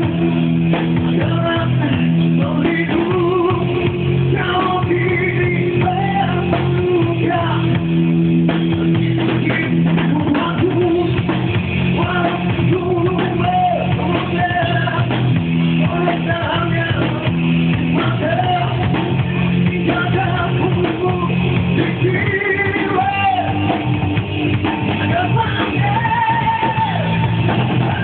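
Live rock band playing: a singer's vocal over electric guitar and a drum kit.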